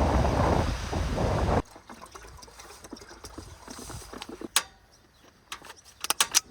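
Wind buffeting the microphone, a loud rushing that cuts off abruptly after about a second and a half. Then a quieter stretch with a few sharp clicks and knocks, several in quick succession near the end.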